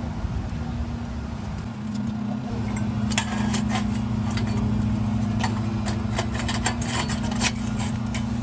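Metal clinking and jangling from tools and rusted exhaust clamp parts being handled, over a steady low hum that sets in about two seconds in.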